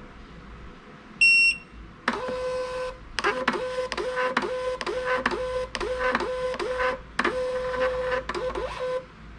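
A318BT thermal label printer gives one short beep, then its paper-feed motor runs for about seven seconds, steadily at first and then in stop-start pulses about two to three a second, as it automatically calibrates to the label roll and feeds labels out.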